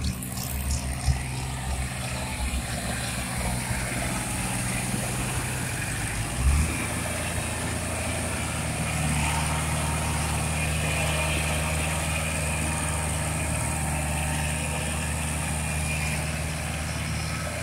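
Farm tractor's diesel engine running steadily as it drives a rotary tiller through a flooded rice paddy, puddling the mud. About six and a half seconds in there is a brief thump and the engine note shifts, then holds steady again.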